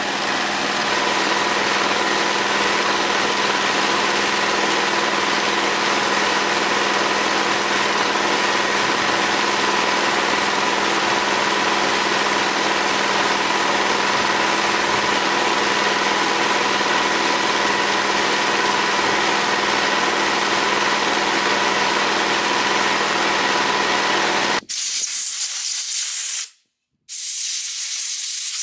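Air compressor running steadily, a constant hum and whine under a loud hiss. Near the end it cuts off and gives way to hissing blasts of compressed air from a blow gun, with a short break between them.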